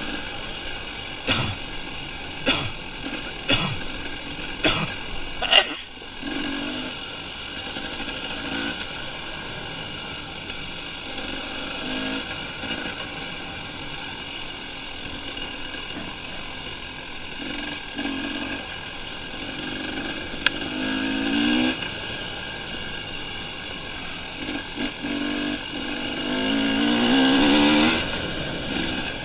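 Dirt bike engine running as it is ridden over a rough trail, revving up again and again, with the longest, loudest rev near the end. Several sharp knocks in the first few seconds.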